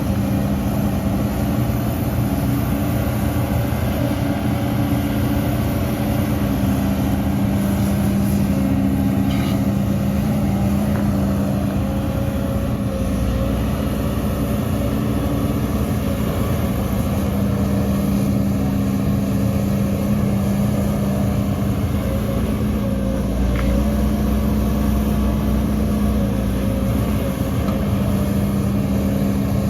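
Heavy diesel engine of earthmoving machinery running steadily, its pitch and low rumble shifting a little now and then.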